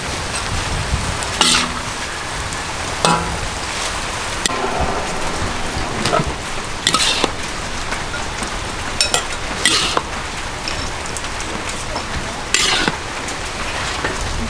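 Water spinach stir-frying in a large wok: a steady sizzle, broken every second or two by a metal spatula scraping and clanking against the wok as the greens are tossed and scooped out.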